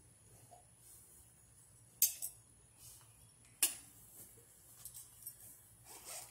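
A few sharp metallic clicks and clinks from handling a rifle and its 37 mm underbarrel launcher. The loudest come about two seconds in and again about three and a half seconds in, with a short cluster near the end.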